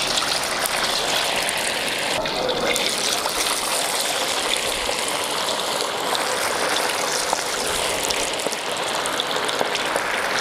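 Starch-coated grass carp pieces deep-frying in hot oil in a wok, lowered in one after another: a steady sizzling hiss with small crackles.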